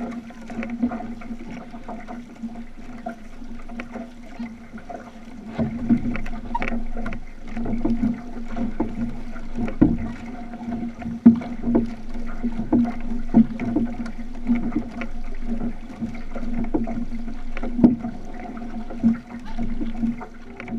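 Outrigger canoe under way with paddles striking and pulling through the water about once a second, over rushing water and a steady low hum.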